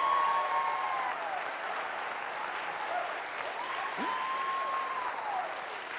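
Audience applauding after a ukulele performance, with two long rising-and-falling cries from the crowd, one at the start and one about four seconds in.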